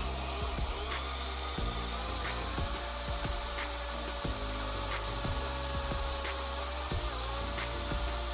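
Electric drill running steadily with a high whine as a spear-point carbide-tipped bit drills into a thin steel blade set on a wooden block. Its pitch dips briefly about seven seconds in, as the bit takes the load.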